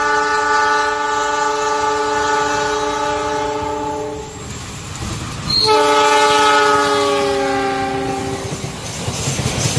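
CC206 diesel locomotive's multi-tone horn sounding two long blasts, about four and three seconds long with a short gap between. The second blast sags slightly in pitch as the locomotive passes, over the rumble of the train running on the rails.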